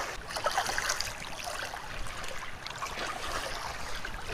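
Shallow water sloshing and trickling at the shoreline, with small splashes in the first second, as a speckled trout is held in it to be revived before release.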